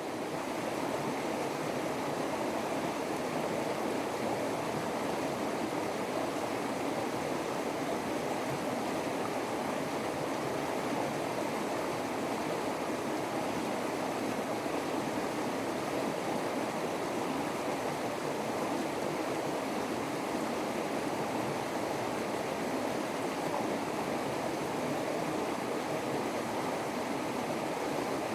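Steady, even rush of running water, with no rise and fall of waves.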